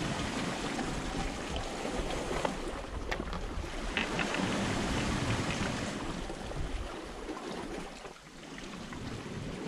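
Sea water washing and lapping against a rocky shore, a steady rushing noise with wind on the microphone. A couple of small clicks about three and four seconds in.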